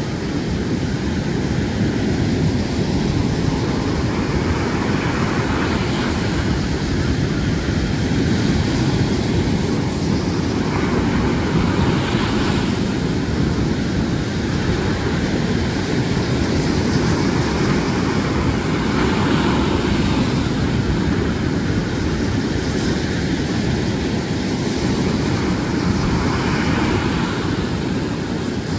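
Storm surf on the Black Sea: waves breaking and washing onto the shore as a steady deep rumble, with a hiss of breaking foam swelling every few seconds.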